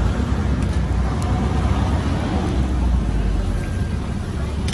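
Busy street ambience: a steady rumble of motor traffic with a general noisy haze, and a sharp click at the very end.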